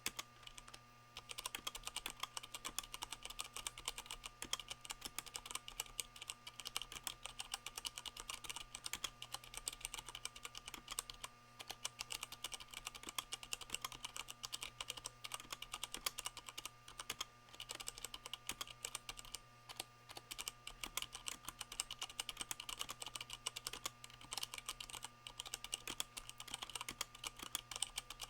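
Steady typing on a Leopold FC660M mechanical keyboard with Cherry MX Brown switches fitted with O-rings: a rapid, continuous run of keystroke clicks with a few brief pauses. A faint steady hum sits underneath.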